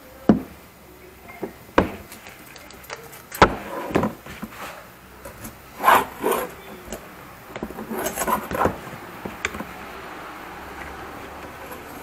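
A metal rod prying and scraping at the handle end of a rusty sanggot knife blade: irregular knocks and scrapes of metal on metal and wood, with a cluster of quick scrapes and knocks about eight seconds in.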